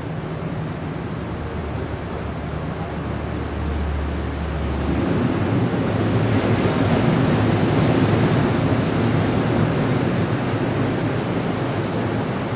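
Ocean surf washing onto a beach, swelling louder about five seconds in and easing off toward the end. A low steady hum sits under it for the first few seconds.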